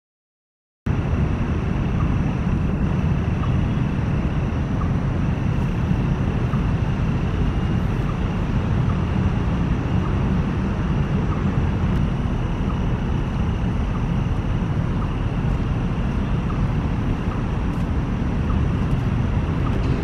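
Steady low rumble of road traffic, with a faint, thin, high steady tone above it; it cuts in suddenly about a second in.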